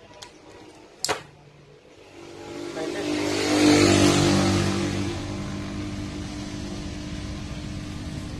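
A motor vehicle's engine passing close by, swelling to its loudest about four seconds in, then running on steadily and slowly easing off. A sharp click comes about a second in.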